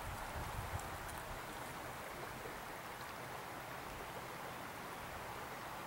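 Faint, steady rush of a flowing stream's current.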